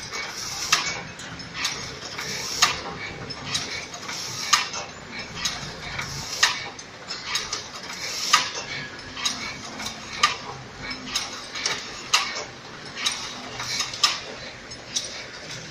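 Welded wire mesh machine running, with a regular metallic clack about once a second and lighter clicks between: each beat is one cycle of its mechanism.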